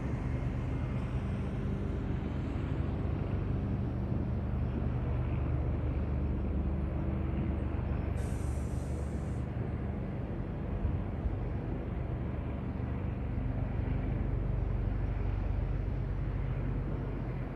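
Steady low engine drone with several low humming tones, like a large vehicle idling nearby, and a short hiss lasting about a second, about eight seconds in.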